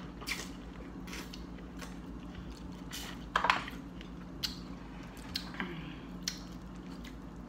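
Eating sounds from corn on the cob and peeled shrimp: chewing, wet mouth smacks and scattered small clicks, with a louder smack about three and a half seconds in, over a faint steady hum.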